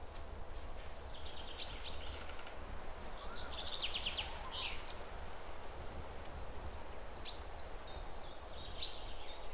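Birds chirping in short, rapid trilled phrases, four or five times, over a steady low rumble.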